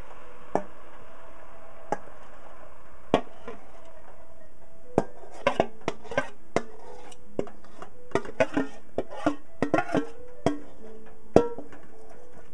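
A metal spoon scraping and tapping against a bowl and the rim of a steel pot as tomato sauce is scooped out: irregular sharp clicks and knocks, sparse at first and coming thick and fast from about five seconds in, over steady background music.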